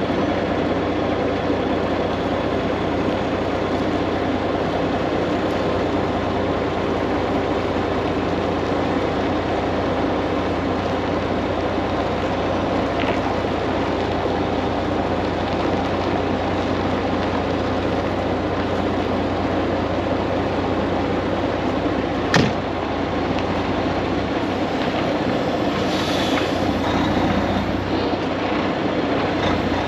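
Semi truck's diesel engine running steadily with a constant low rumble, and a single sharp click about 22 seconds in.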